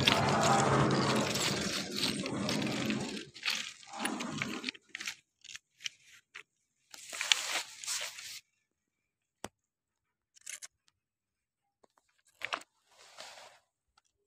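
Train wheels rolling along the steel rail at close range, the noise dying away over the first four seconds as the train passes. After that come a few short, scattered crunches and scrapes.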